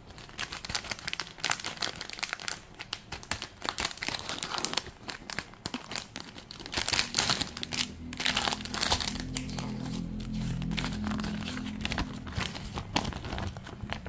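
Plastic packaging bags of a micro building-block kit crinkling as they are handled and opened by hand, in irregular rustles and crackles.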